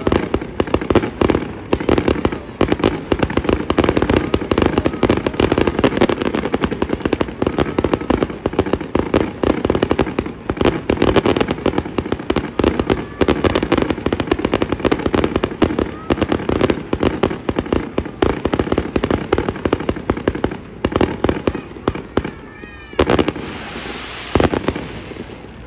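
Aerial fireworks shells bursting in rapid, overlapping succession, a dense barrage of bangs and crackling. A few seconds before the end the bangs thin out and give way to a brief loud hiss.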